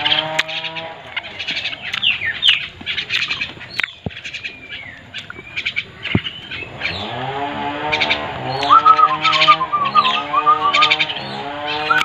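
Many small birds chirping and twittering in quick, high notes. From about seven seconds in, lower held tones with a wavering top note join them.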